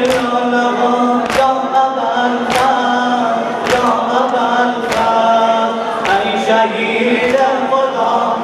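A group of men strike their chests in unison (sinezani), a slap about every 1.2 seconds, under a steady chanted mourning lament (noha).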